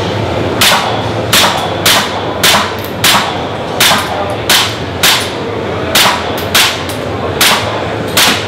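Airsoft pistol firing a string of about a dozen single shots, roughly two a second, with slightly uneven spacing: a rapid timed string at a reactive target.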